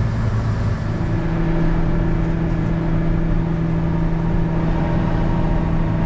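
Tractor engine running, then speeding up to a higher steady pitch about a second in and holding there, as the grain cart is readied to unload corn into the truck.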